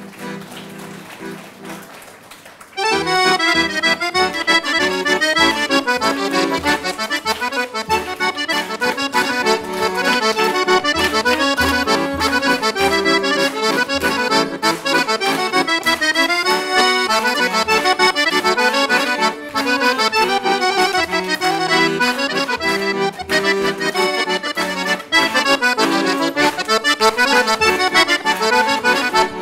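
Cavagnolo chromatic button accordion playing a traditional tune: a melody over a regular bass beat. The full playing starts about three seconds in.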